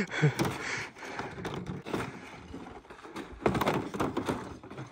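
Stiff plastic hull of a foldable kayak being unrolled and flexed by hand: uneven scraping and rustling with scattered knocks and clicks.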